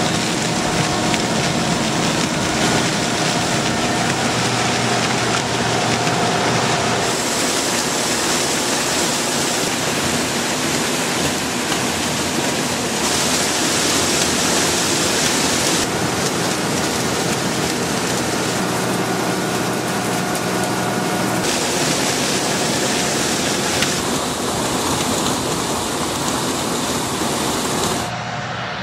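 Case IH Axial-Flow 6088 combine harvester running while harvesting maize: a loud, steady rush of engine, threshing machinery and dry stalks being pulled through the corn header. The sound shifts abruptly several times.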